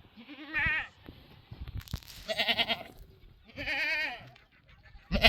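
A flock bleating: about four quavering bleats in turn, the last and loudest near the end.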